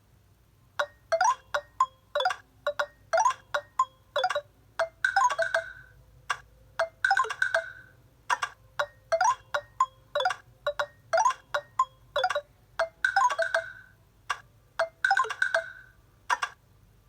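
Nokia Lumia 520 ringtone: quick, bright, chime-like struck notes in a short melodic pattern that repeats over and over, ending just before the close.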